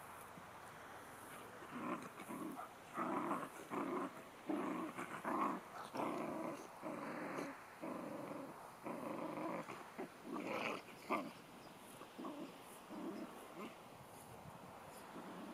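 Dog growling in a string of short bursts, starting about a second and a half in and dying away near the end.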